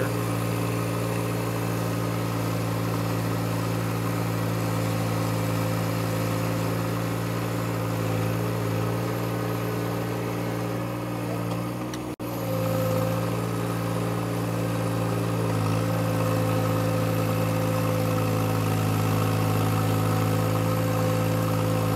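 John Deere compact tractor's three-cylinder diesel engine running at a steady speed as the tractor pushes a front-mounted land leveler through loose dirt. The sound cuts out for an instant about halfway through.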